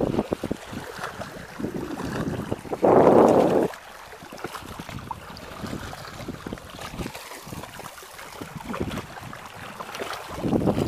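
Wind buffeting the microphone, with handling rustle and small clicks from a spinning rod and reel being handled close to it. A louder rushing burst lasts about a second, around three seconds in.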